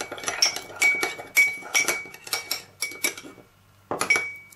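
Metal spoon stirring a little salad dressing in a ceramic cup, clinking against the cup's sides with a short ringing tone, about twice a second. The clinks pause briefly, then one or two more come near the end.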